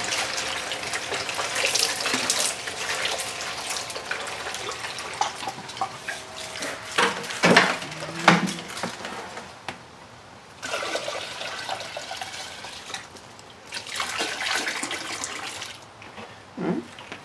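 Water from a small pump running down a Gold Fox Mini Monster sluice and splashing into a plastic basin, with two loud knocks about seven and eight seconds in. The steady flow stops about ten seconds in, followed by two shorter spells of splashing water and a thump near the end.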